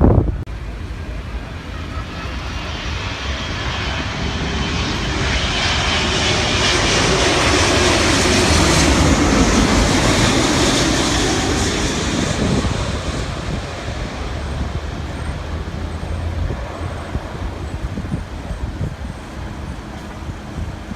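Jet airliner passing close by: the engine noise swells to a peak about halfway through, drops in pitch as the plane goes past, then fades away.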